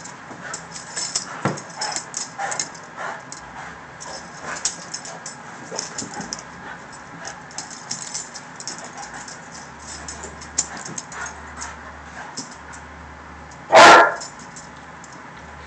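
A Saint Bernard and a Doberman playing, with scuffling and light clicking throughout and a few faint short dog calls. One loud bark comes near the end.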